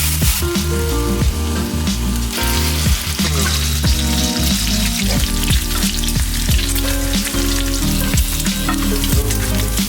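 Food sizzling as it fries in a pan, with background music carrying a steady beat and bass line over it.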